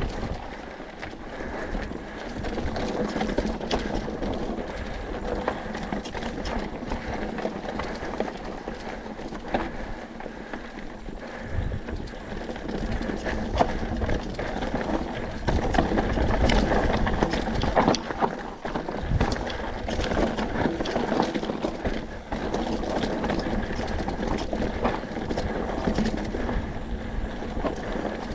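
Mountain bike descending a loose, rocky trail: tyres crunching over gravel and stones, with a steady clatter of the bike rattling over rocks. It gets louder for a couple of seconds just past the middle.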